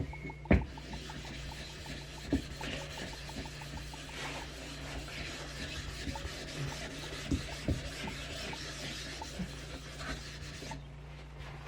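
A steel blade being stroked over a wet waterstone, a steady gritty scraping that stops about a second before the end, with a few light knocks along the way.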